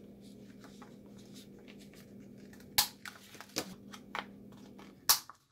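Handheld corner rounder punch snapping through the corner of patterned paper: two sharp snaps, about three seconds in and near the end, with lighter clicks and paper handling between, over a faint steady hum.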